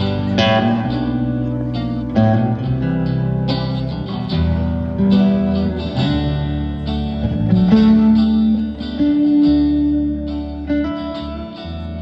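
Guitar-led music: plucked guitar notes ring out one after another over long sustained low notes.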